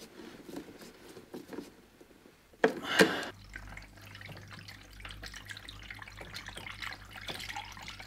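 Diesel fuel dripping from the heater's opened fuel line in faint irregular drips. There is one loud knock about three seconds in, and just after it a low steady hum starts.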